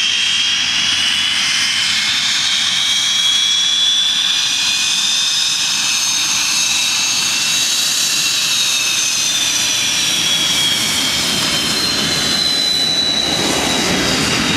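Hawker Hunter's Rolls-Royce Avon turbojet running as the jet taxis by, a high whine over a steady rush that rises slightly in pitch as it approaches and falls as it moves away. Near the end a deeper roar builds.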